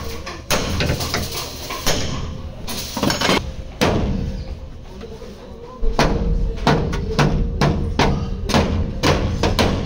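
Hammer blows on the sheet-metal wheel arch of a Honda N-WGN, with a wooden block held against the panel as a dolly while it is beaten back into shape. Separate blows come a second or so apart, then a quicker run of about three blows a second from about six seconds in.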